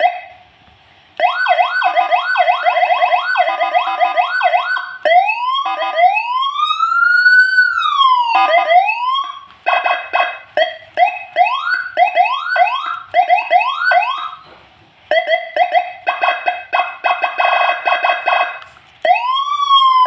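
Senken CJB 100 electronic siren switched through its tones during a test of its jumpered sound selector: fast repeated rising sweeps, then one slow rise-and-fall wail, then slower repeated upward sweeps, then a rapid pulsing tone, with brief breaks between changes.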